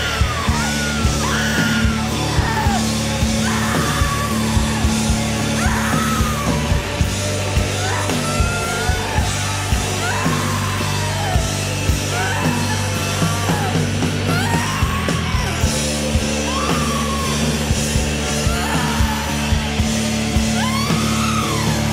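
Loud live rock music: a singer yells and screams phrases that slide down in pitch over a steady drum beat and held bass and guitar chords.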